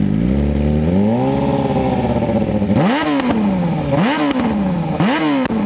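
Corvette ZR1's V8 being revved in place: one slow rise and fall, then from about three seconds in, quick blips roughly once a second, each climbing sharply and dropping back.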